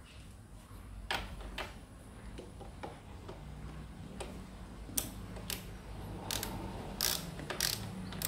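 Socket ratchet wrench clicking as it is swung back and forth to run down the steering stem nut on a motorcycle's upper triple clamp: a scattering of sharp, irregular clicks.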